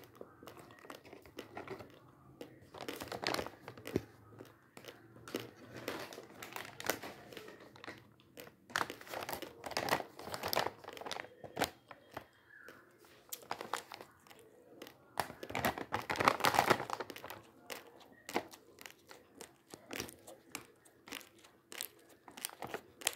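Plastic pouch of Fortune basmati rice crinkling and crackling as it is handled and squeezed, in irregular bursts, with a longer, louder stretch of crinkling about sixteen seconds in.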